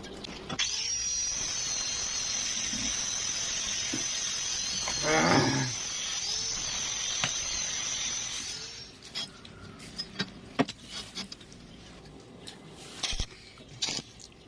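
Electric arc welding: a steady hiss with a wavering high tone that starts suddenly and cuts off after about eight seconds. A short rising pitched sound comes about five seconds in, and a few quieter clicks and knocks follow the weld.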